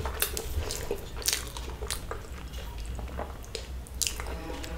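Chewing and eating sounds from a full mouthful of white rice eaten by hand, with scattered short clicks over a low steady hum.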